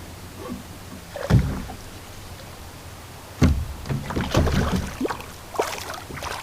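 Knocks and thumps against a plastic fishing kayak's hull while a fish is being fought: one hard thump about a second in, another about three and a half seconds in, then a quick run of smaller knocks.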